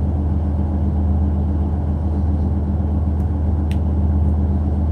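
A steady low hum, as of a motor or fan running, with two faint sharp clicks about three and a half seconds in, fitting a fingernail prying at the plastic earbud housing.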